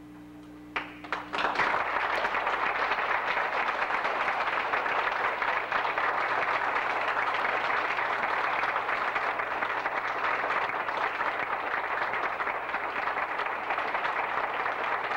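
Audience applauding: a few scattered claps, then at about a second and a half in the clapping swells into steady, even applause.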